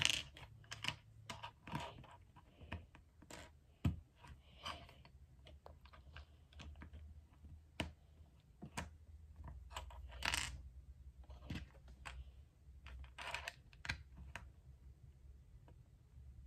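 Plastic LEGO bricks clicking and clattering as small hands sort through a pile of loose pieces and press them together: faint, irregular clicks, a few sharper than the rest.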